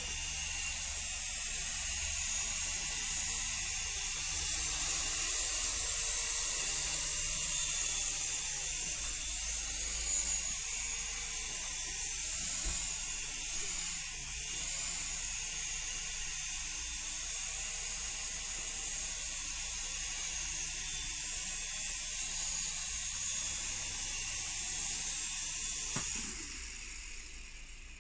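A helicopter running steadily: a continuous high whine with slightly wavering pitch over hiss and a low hum, dropping in level near the end.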